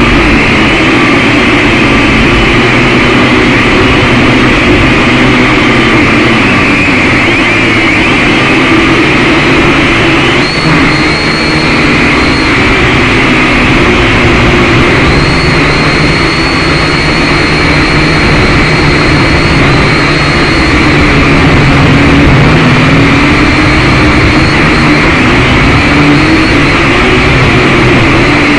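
Syma X5C quadcopter's small electric motors and propellers whining loudly and continuously, close up. The pitch wanders up and down as the throttle changes.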